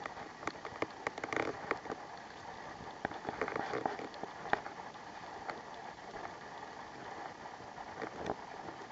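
Small stream trickling over rocks as a steady rush, with irregular sharp clicks and crackles on top.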